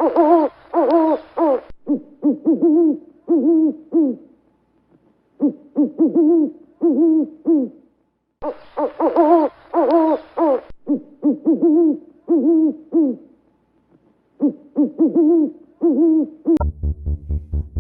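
Owl hooting: repeated short hoots, each rising and then falling in pitch, in groups of four or five with brief pauses between groups.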